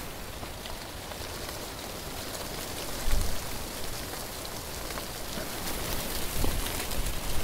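Steady outdoor hiss of wind through trees and dry grass, with a brief low bump of wind on the microphone about three seconds in.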